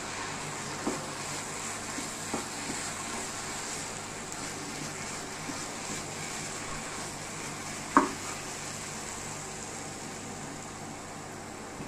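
Grated coconut and condensed milk cooking in ghee in a non-stick pan, with a steady sizzle as a plastic spatula stirs it. There are a few light knocks of the spatula on the pan, and one sharper tap about eight seconds in.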